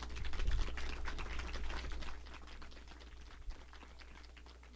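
Applause from a small group of people, dense at first, then thinning to scattered claps and dying away over about three seconds.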